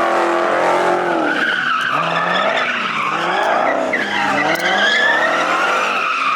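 A car spinning donuts: tyres squealing in a wavering howl while the engine revs rise and fall again and again.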